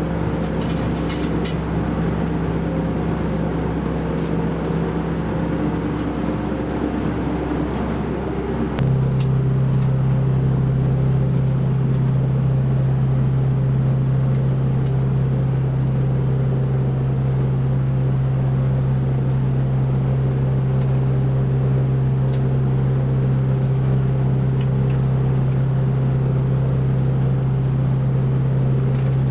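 Steady machine hum. About nine seconds in, its pitch drops and it gets louder, then it holds steady, with a few faint clicks over it.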